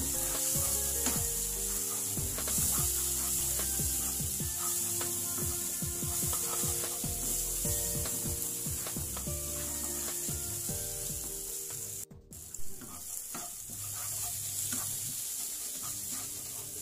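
Yellow spice paste frying in oil in a non-stick wok, sizzling steadily while a wooden spatula stirs and scrapes it across the pan in many short strokes. The sound drops out briefly about twelve seconds in.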